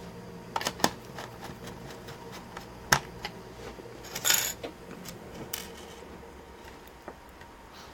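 Scattered small clicks and taps of a screwdriver, screws and a laptop's plastic case being handled during reassembly. A short rustle comes about four seconds in.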